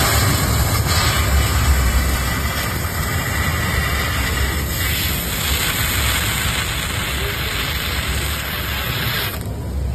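Fiber laser cutting head cutting a steel H-beam: a steady hiss of the assist-gas jet and cut that starts suddenly and stops abruptly near the end, over a steady low machine rumble.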